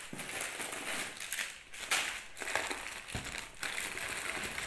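Plastic sweet wrappers and packets crinkling and rustling as hands rummage through a box of wrapped chocolates, in irregular crackles.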